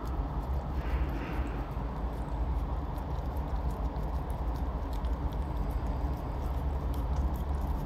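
Siberian husky puppy lapping yogurt from a small cup, a run of quick wet licking ticks, over the steady low rumble of a car cabin.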